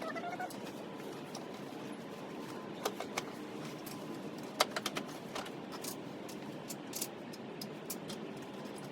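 Scattered light clicks and taps of car parts being handled and fitted, over a steady background hum, with a bird chirping briefly at the start.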